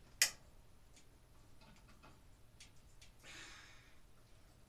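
Hand work on overhead light-fixture wiring: one sharp click just after the start, a few faint clicks, and a short soft hiss about three seconds in.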